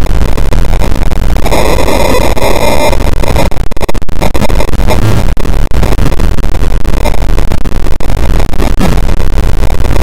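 Loud, distorted rushing and sloshing of water over a camera's waterproof housing held at the water's surface, a dense noise that swells for a second or so near the start.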